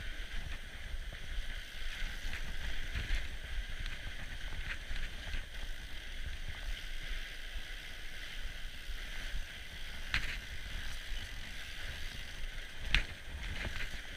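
Fat bike riding over packed snow: a steady hiss and low rumble of the tyres and bike on the trail, with a few sharp knocks and rattles from bumps, the loudest about ten and thirteen seconds in.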